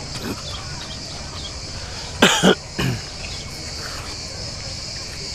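Continuous high chirring of crickets, with a person coughing about two seconds in, a double cough followed by a smaller one, the loudest sound.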